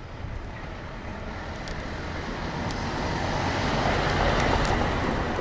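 A road vehicle passing close by, its tyre and engine noise swelling to a peak about four seconds in and then easing off.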